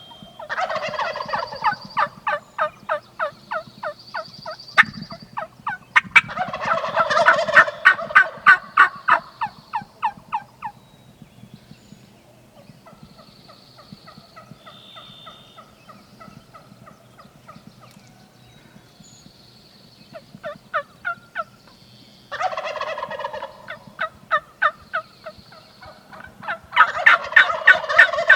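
Wild turkeys gobbling and calling in several bouts of rapid, repeated notes: one starting about half a second in, another at about six seconds, and more after about twenty seconds and near the end, with quieter gaps between.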